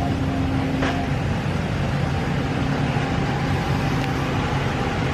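Ram 1500's 5.7-litre Hemi V8 running steadily at low idle through its quiet stock exhaust. There is a single click about a second in.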